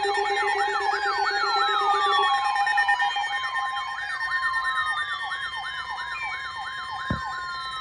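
Several emergency alert tones sounding at once: a siren-like tone sweeping rapidly up and down, about three times a second, layered over steady alert tones and slow falling glides.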